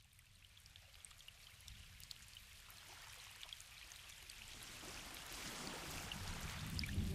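Water sound, a steady rushing hiss with scattered small drips, fading in gradually from silence. A low steady hum joins it in the second half.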